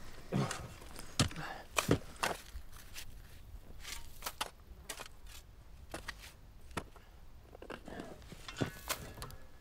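Shovel digging into dry, dusty earth: several irregular blade strikes and scrapes with soil thrown, the strikes coming thickest in the first couple of seconds and again near the end.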